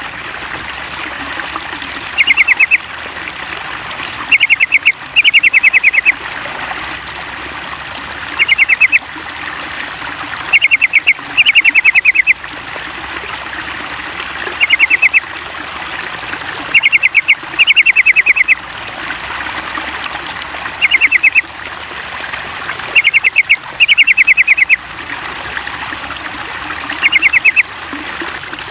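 Yellow-vented bulbul song: short phrases of quick, bright notes repeating in the same pattern every few seconds, over a steady trickle of running water.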